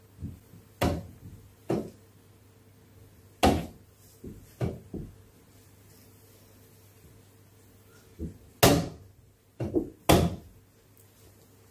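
Wooden chess pieces set down on the board and the chess clock's button being struck: about ten sharp knocks in quick pairs and small clusters, over a low steady hum.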